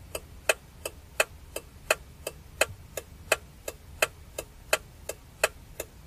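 Clock-like ticking sound effect, about three even ticks a second alternating louder and softer, tick-tock, over a faint low hum. It marks the yellow 'slow' phase of a cartoon traffic light.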